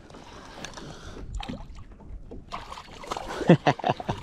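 Hooked largemouth bass thrashing at the surface beside a kayak: a flurry of sharp, irregular splashes from about two and a half seconds in, loudest around three and a half seconds, after a quieter stretch of faint water noise.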